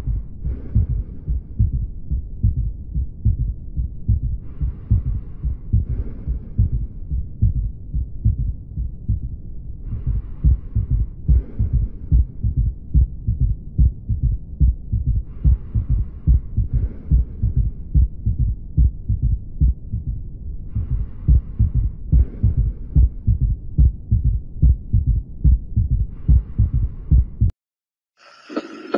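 Heart sounds heard through a stethoscope, beating steadily in the three-beat 'Ken-tuc-ky' rhythm of a third heart sound (S3) gallop, which comes from rapid filling and expansion of the ventricle. A soft hiss recurs about every five seconds, and the sound cuts off suddenly near the end.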